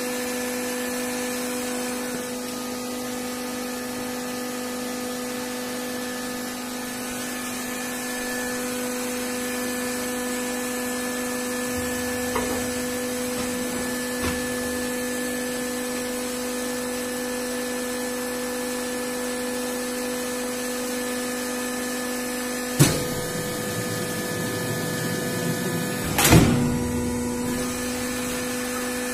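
Cardboard die-cutting machine running with a steady electric hum, then two sharp clunks near the end, about three and a half seconds apart.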